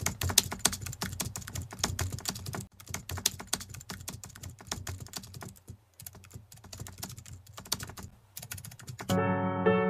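Computer keyboard typing: rapid, irregular keystrokes with a few short pauses, stopping about nine seconds in, when soft piano music begins.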